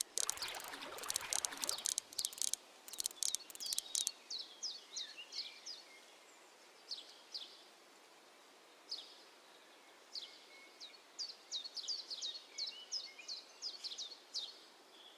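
A small bird chirping again and again in short, high, downward-sweeping notes. It follows a few seconds of irregular crackling noise at the start.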